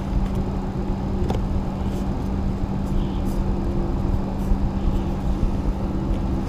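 A steady low hum over a constant rumbling background, with a fainter higher tone that comes and goes several times.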